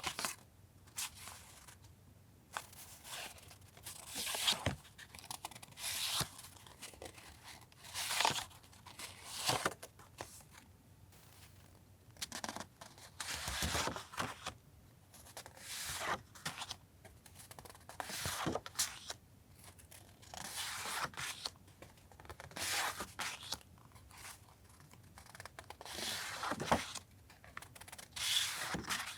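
Paper journaling supplies being handled and unwrapped: short rustling and tearing strokes, a second or two apart.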